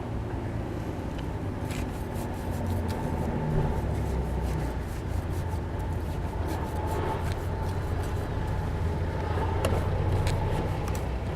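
A steady low motor rumble, like an idling engine, with scattered light clicks and taps over it.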